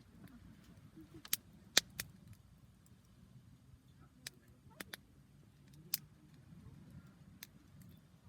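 Wood campfire burning, with sharp crackles and pops about eight times at irregular intervals, the loudest a little under two seconds in, over a low steady rumble.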